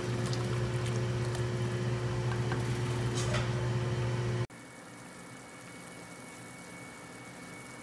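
Soup simmering in a large stainless steel stockpot while it is stirred, with a few light clicks of the ladle against the pot over a steady low hum. About four and a half seconds in, the sound cuts abruptly to a quieter, steady hiss.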